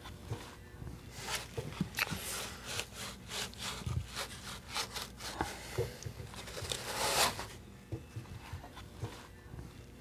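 Hands pulling and rubbing a wet deer hide over a foam taxidermy form: a run of short rubbing and scraping strokes, the loudest about seven seconds in.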